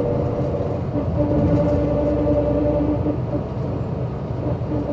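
Engine of a MAN SL202 CNG bus running steadily while the bus is driven: a continuous low rumble with a level droning note that fades about three seconds in and comes back near the end.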